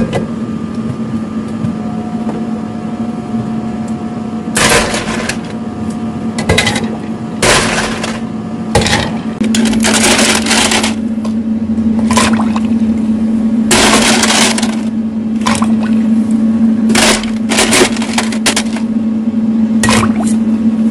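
Electric pot (電鍋) steaming as it cooks, giving irregular bursts of steam hiss and sputter over a steady low hum. The hum grows louder about halfway through.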